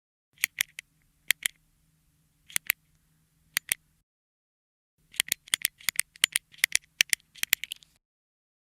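Retractable click pen's push button being clicked, each press and release giving a close pair of sharp clicks. Four slow, spaced pairs come first; after a second's pause the clicking turns fast and rapid for about three seconds.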